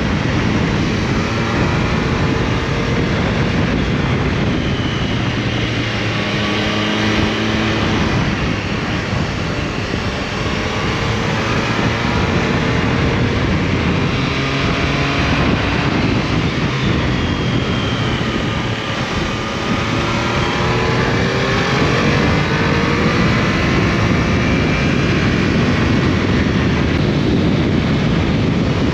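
Triumph Tiger Sport 660's three-cylinder engine revving up and falling back again and again through a run of bends, under a heavy rush of wind noise.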